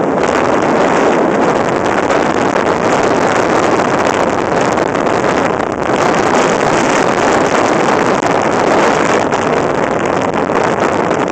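Loud, steady wind rush on the microphone over the engine of an ATV ridden at about 45–50 mph, easing briefly near the middle.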